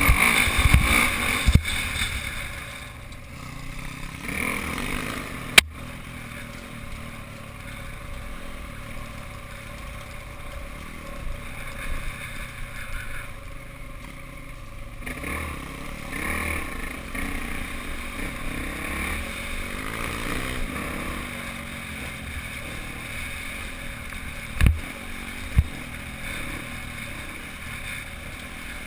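Dirt bike engine running steadily while riding a trail, heard from onboard, a little louder in the first couple of seconds. A sharp knock comes about five and a half seconds in and two low thumps near the end.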